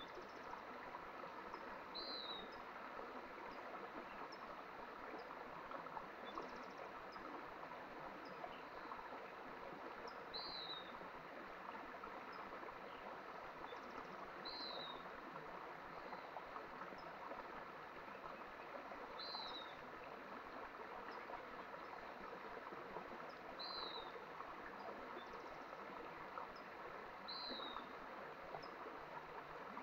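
Mountain stream flowing steadily, with a bird repeating a short high call every few seconds and a few fainter chirps.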